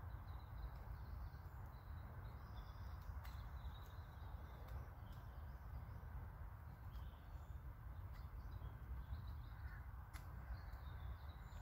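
Faint woodland background: birds calling now and then over a low steady rumble, with a few faint clicks.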